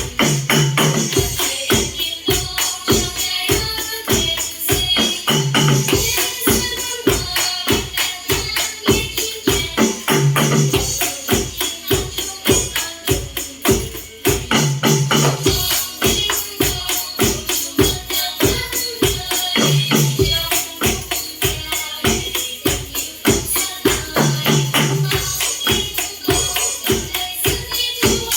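Music with a fast, steady beat and bright percussion strikes, running without a break.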